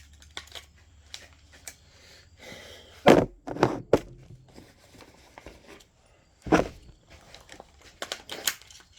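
Loud knocks and scattered clicks from handling an AR-style rifle that has just run empty, as at a magazine change. The loudest knocks come about three seconds in and again past six seconds.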